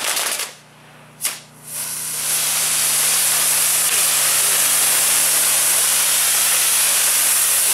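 Fireworks castillo (bamboo fireworks tower) going off. A loud rush fades within the first half second, a single sharp crack comes about a second in, then from about two seconds the spark fountains spray with a steady, loud hiss.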